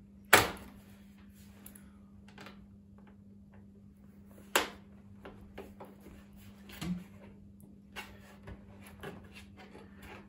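Plastic top-box base plate being pressed and seated on a motorcycle rear rack: two sharp clicks, one just after the start and one about four and a half seconds in, then a few lighter knocks, over a faint steady hum.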